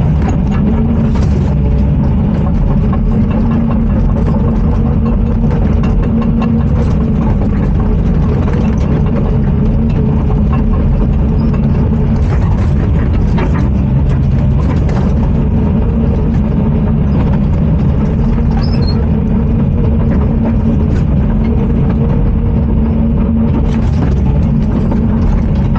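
Heavy tracked excavator's diesel engine running steadily under load, heard from inside the cab, with a few brief knocks from the machine working frozen ground.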